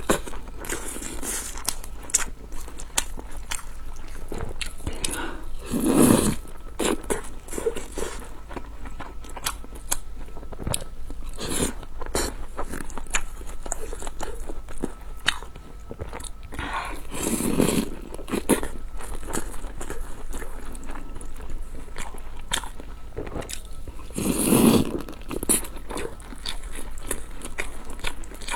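Close-miked eating: biting and chewing with crunching and many small wet mouth clicks, with a few louder bites about 6, 17 and 25 seconds in.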